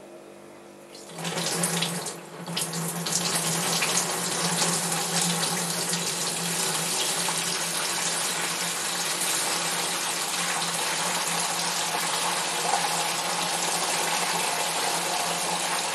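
Fermented blackberry wine must poured from a plastic bucket through a draining bag and colander into a fermentation bucket: liquid splashing in, starting about a second in with a first gush and a brief break, then pouring steadily.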